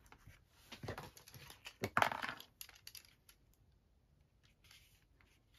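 Clicks and light knocks of a small hand-held craft tool being picked up and handled on a work surface, with the loudest clatter about two seconds in, then only faint ticks.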